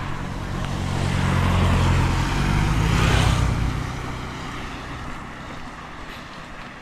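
A car passing on a wet road. Its engine hum and tyre hiss swell to a peak about three seconds in, then fade as it moves away.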